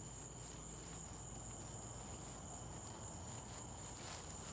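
Steady high-pitched chorus of night insects over a low hum, with faint light footsteps.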